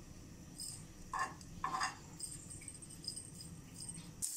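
A few soft handling noises, then butter dropped into a hot nonstick frying pan starts to sizzle suddenly near the end.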